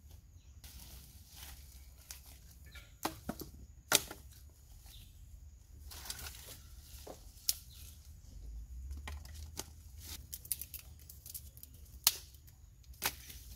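Leaves rustling and plant stems snapping as leafy vines and branches are pulled and broken by hand, with about five sharp snaps standing out.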